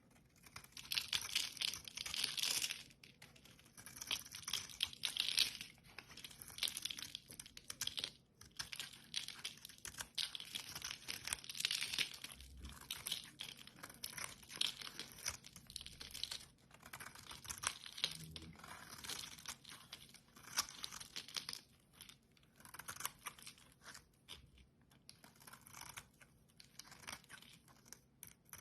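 A blade cutting through a bar of soap, stroke after stroke: each cut is a second or two of fine, grainy crackling, with short pauses between the cuts.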